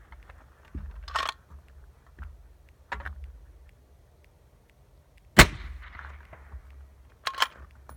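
A single suppressed 6.5 Creedmoor rifle shot through a 5-inch Thunder Beast Ultra suppressor, about five and a half seconds in: a sharp crack with a trailing echo, metered at about 145.5 dB. Lighter handling clicks come before it, and about two seconds after it there are two quick metallic clicks of the bolt being worked.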